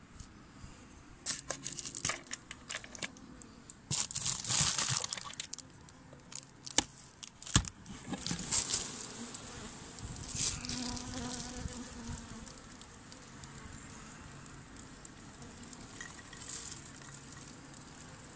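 Honeybees buzzing around an opened hive, with a run of rustling and clicking handling noises through the first half.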